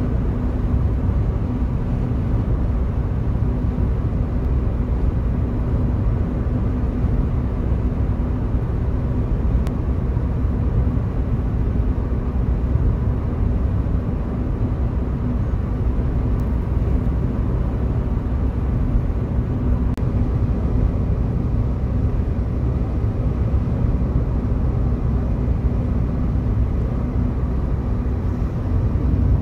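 Steady low rumble of wind and road noise with a faint steady hum underneath, unbroken throughout.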